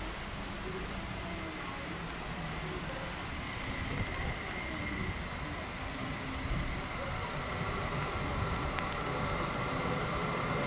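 Electric regional train approaching on the line, its running noise growing steadily louder with a steady high whine coming up, over a constant hiss.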